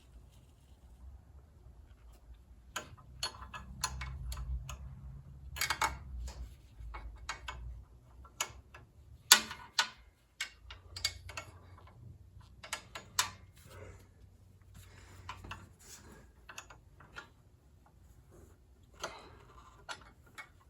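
Irregular metallic clicks and clinks of a wrench on the exhaust manifold and muffler bolts of a lawn tractor as they are worked in, with some low rumbling from handling.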